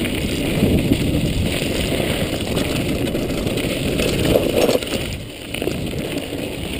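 Mountain bike rolling fast downhill on a dirt trail, heard from a chest-mounted GoPro: a steady rumble of tyre and wind noise with small knocks and rattles from the bike over the bumps, easing briefly about five seconds in.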